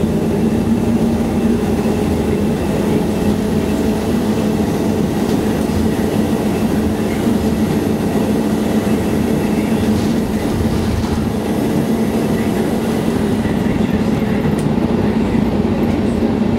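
Volvo city bus under way, heard from inside the passenger cabin: a steady engine drone with road and body rumble as the bus cruises.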